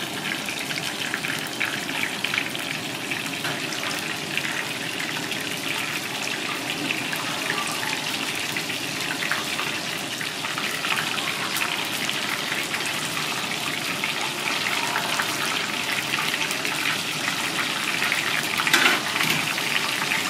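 Battered razorfish pieces deep-frying in a pot of hot oil: a steady, dense sizzle and crackle of bubbling oil, briefly louder about a second before the end.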